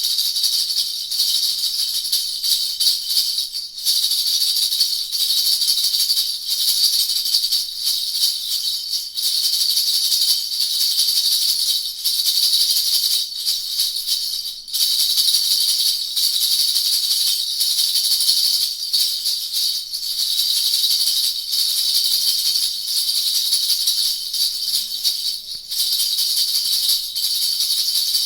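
Baby's quad jingle bell rattle being shaken steadily: a continuous bright jingling of its small bells, broken by a few brief pauses.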